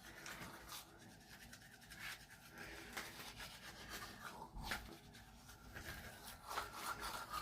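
Faint, irregular rubbing and scratching made up of many short strokes.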